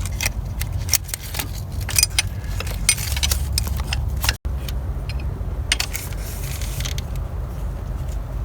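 Metallic clinks and ticks of an open-end wrench turning out a loosened starter mounting bolt, dense in the first four seconds and sparser after, over a steady low rumble.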